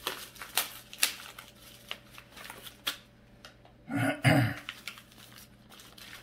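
Foam wrapping sheet and plastic bag crinkling and rustling in short crackles as a crossbow scope is unwrapped by hand. A brief voice-like sound breaks in about four seconds in.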